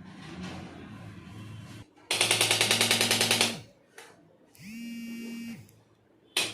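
Handheld electric percussion instrument run in short bursts. A loud stretch of rapid strikes, about nine a second, rides on a motor hum that rises as it starts and falls as it stops. A shorter, quieter run follows with only the motor whine. A click comes near the end as the pulsing starts up again.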